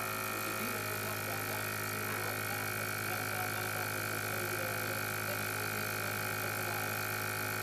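BGA rework station running while it heats a laptop GPU chip for reflow: a steady hum with a constant high whine over it, and no clicks or changes.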